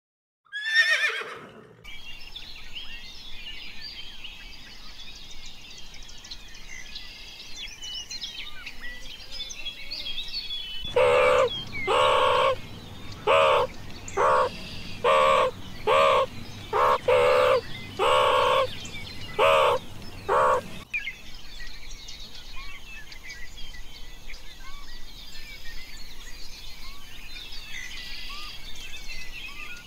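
A horse's whinny trailing off in a falling pitch at the start, then continuous bird chirping. In the middle come about a dozen loud, short meerkat calls, repeated over some ten seconds.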